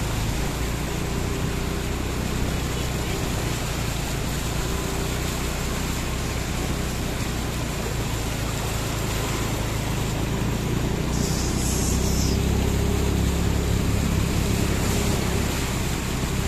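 Motor vehicle driving through a flooded road: a steady rush and splash of water over a low engine hum, growing a little louder in the second half.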